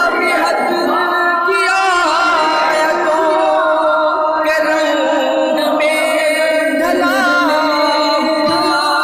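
A male voice singing an Urdu tarana, drawing out long held notes with wavering ornaments and no clear words.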